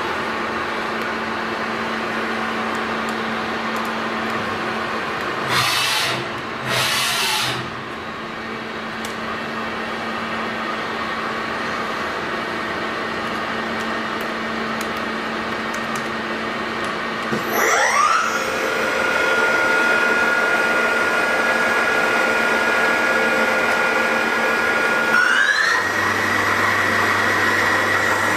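Daewoo ACE HM 800 horizontal machining center running, with a steady machine hum and two short hissing bursts about six seconds in. About seventeen seconds in the spindle spins up with a rising whine that levels off into a steady whine. About twenty-five seconds in it rises again to a higher steady whine.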